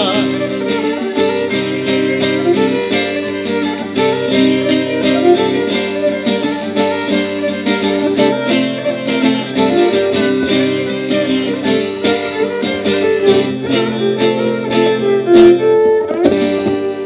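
Violin and oud playing an instrumental folk tune, with quick plucked oud notes under the bowed violin melody. The music winds down near the end.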